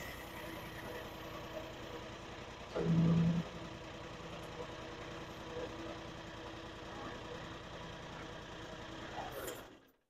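Engine of a FLAND FL45 mini articulating wheel loader running steadily, with a brief louder, pitched sound about three seconds in. The sound cuts out just before the end.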